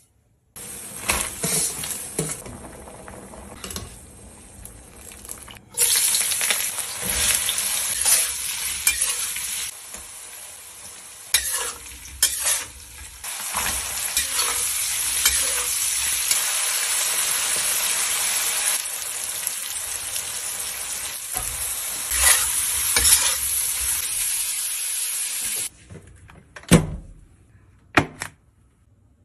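Diced meat and onion sizzling as they are stir-fried in a wok, with a spatula stirring against the pan. The loud hiss starts suddenly about six seconds in and cuts off near the end, followed by a few sharp knocks.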